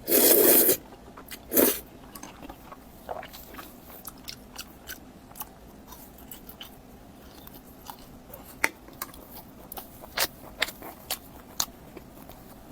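Close-miked eating sounds: a loud crunchy bite at the start and a shorter one a second or so later, then chewing with many small clicking mouth sounds.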